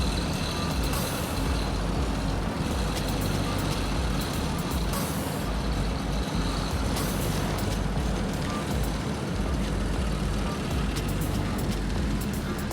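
Heavy diesel road-paving machinery running steadily, with a few short bursts of high hissing.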